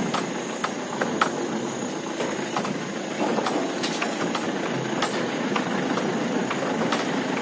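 Mahindra Bolero pickup driving over a rough, rutted dirt track, heard from its open load bed: steady engine and tyre noise with irregular knocks and rattles as the body jolts over the ruts.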